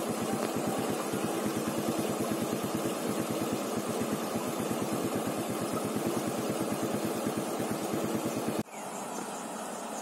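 Rushing water of floodwater pouring over a concrete weir, with an idling engine's even low pulse, about eight beats a second, running over it. Near the end the engine sound cuts off suddenly, leaving only the steady rush of water.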